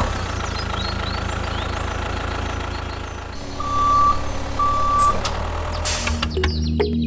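Tractor engine sound effect running with a steady, rapid chug. About three and a half seconds in come two short high beeps, half a second apart. Near the end a brief hiss is followed by background music.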